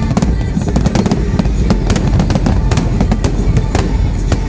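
Aerial fireworks going off in a display: a rapid, irregular series of sharp cracks and bangs over a continuous low rumble of bursts.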